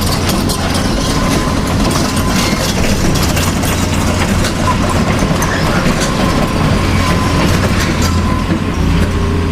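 Radio-controlled model truck or excavator running: a steady low motor-and-gear drone with a continuous crackle of small clicks, as of tyres or tracks grinding over dirt and grit.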